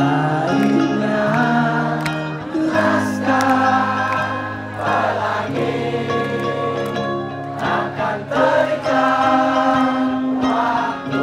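Live band music: electric guitar and bass under sung vocals, with many voices singing together.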